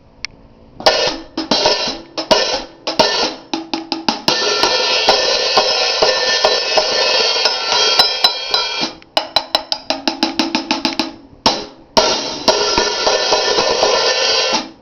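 Paiste PST 14-inch hi-hat cymbals played in a sound check. It starts with separate strokes, then a long stretch of steady ringing wash, then a quick run of short crisp strokes, and ends with another ringing wash.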